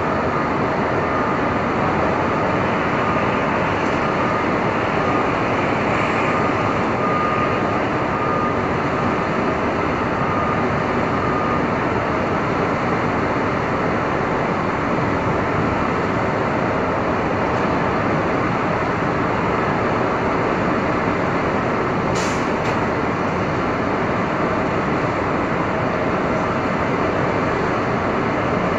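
Manhattan street ambience on a stormy day: a dense, steady wash of traffic noise. A faint high steady tone runs through roughly the first eight seconds, and a single sharp click comes about 22 seconds in.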